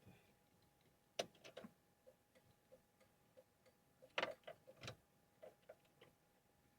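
Quiet, even ticking of a vehicle's turn-signal indicator in the van's cabin, about three ticks a second, with a few louder clicks and knocks about a second in and again around four to five seconds in.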